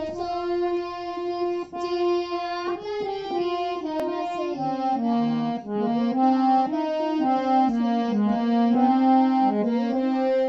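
Hand-pumped harmonium playing a melody of reedy, sustained notes. The first notes are held for about three seconds, then the tune moves on in quicker steps.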